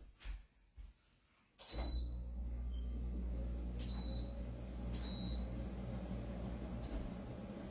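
A household electrical appliance switches on with a click about a second and a half in and hums steadily, with three short high beeps over the next few seconds.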